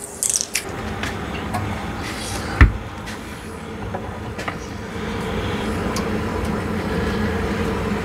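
Handling noise as a thermal expansion tank is lifted and set onto its threaded fitting on the water-heater pipework: scattered light clicks and taps, with one sharper knock a little over two seconds in. Under it runs a steady low hum that grows a little louder in the second half.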